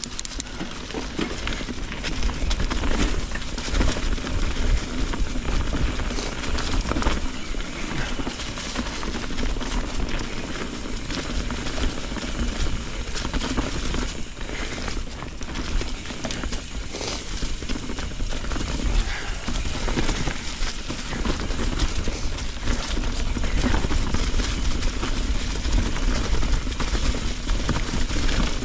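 Mountain bike riding down a dirt singletrack covered in dry fallen leaves and rocks: tyres rolling over leaves and stones, with a steady rumble and many small knocks and rattles from the bike.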